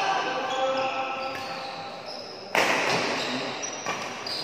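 A badminton rally in a large hall: rackets striking the shuttlecock, with one loud, sharp hit about two and a half seconds in that echoes on. Shoes squeak briefly on the court floor, and voices murmur in the background.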